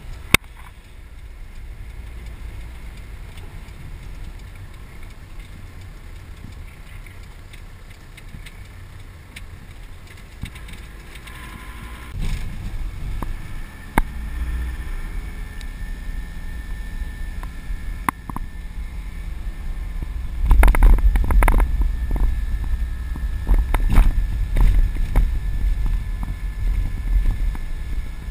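Van engine and tyre noise heard inside the cab while driving. About twelve seconds in, the engine note rises as it speeds up, and from about twenty seconds in the rumble grows louder, with repeated knocks and rattles of the cab.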